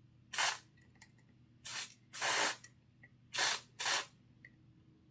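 Aerosol contact cleaner sprayed in five short hissing bursts, the middle one the longest, blasting fibres and gunk out of a stiff model locomotive axle.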